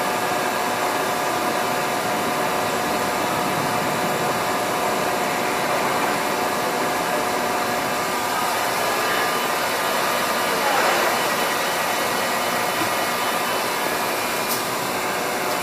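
Mori Seiki MV-653 CNC vertical machining center running steadily, its spindle turning at a low test speed under a constant whirring hum with faint steady tones.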